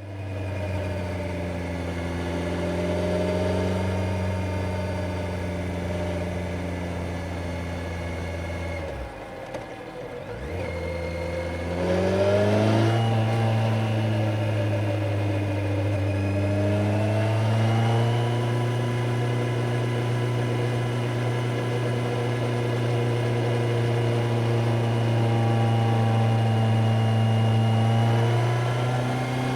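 Kawasaki Z900's inline-four engine running steadily under way. The revs dip about nine seconds in, then climb to a higher steady pitch and rise a little again later on.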